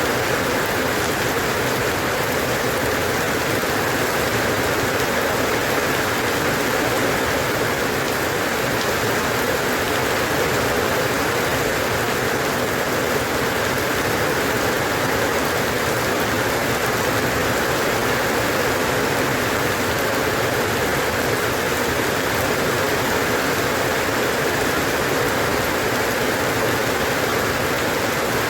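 Steady rain falling, an even rushing hiss without pauses or thunder.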